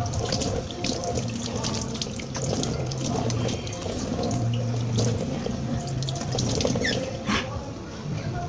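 Water running from a tap into a sink, with splashing as a face is washed by hand.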